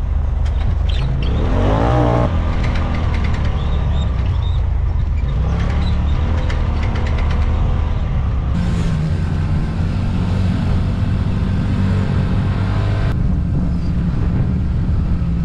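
Polaris RZR Pro XP 4 side-by-side's engine running steadily as it drives over sand, heard from a camera mounted on the vehicle, with a brief rev, rising in pitch, about two seconds in.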